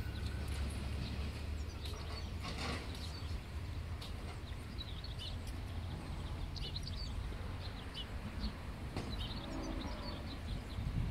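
Small birds chirping repeatedly in short, high calls over a steady low rumble.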